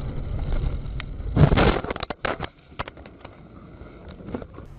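Car crash heard from inside the vehicle: steady road rumble, then a loud impact about a second and a half in, followed by a run of sharp knocks and clatters that thin out to a few last ones near the end.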